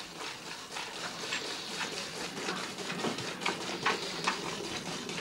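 Cow being milked by hand: jets of milk squirting into a galvanised metal pail, about two squirts a second in a steady rhythm.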